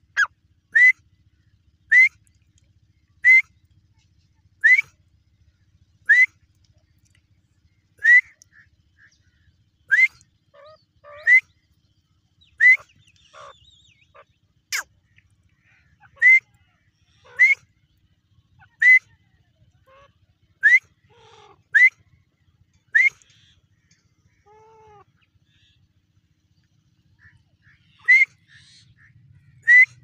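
Grey francolin (teetar) calling: a short, loud note repeated over and over, about one every second or so, each sweeping up and then sharply down. The calls break off for about five seconds near the end, then start again.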